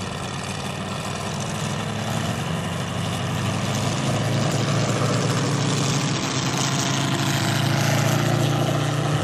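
Moki four-stroke radial engines of large-scale RC AT-6 Texan models running steadily on the runway, growing gradually louder.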